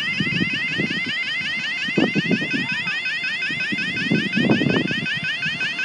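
Level crossing warning alarm sounding: a quick rising sweep repeated about five times a second, steady and odd-sounding. The recordist calls it broken.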